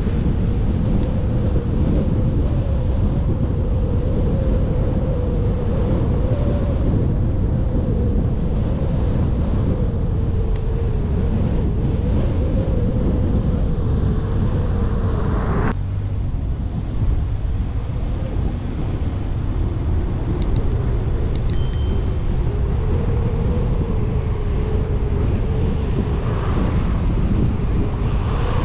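Car driving through city streets: steady engine and road rumble with wind noise. About halfway through, the engine note climbs and then drops off suddenly, and a few short high beeps come a few seconds later.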